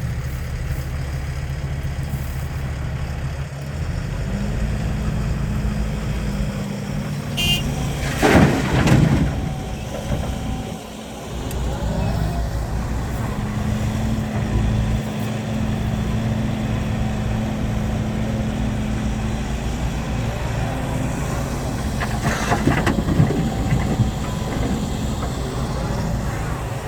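Heavy diesel engines of a dump truck and excavator running steadily, the engine note stepping up a few seconds in. Louder noisy surges come about 8 seconds in and again near the end.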